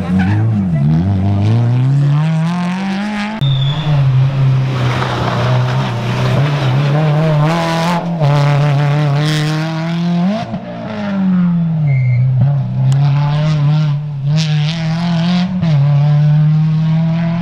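Renault Clio Ragnotti N3 rally car's engine revving hard as it accelerates through the gears. The pitch climbs and then drops at each shift, and it dips once under braking before pulling away again. The sound cuts abruptly a few times between separate passes.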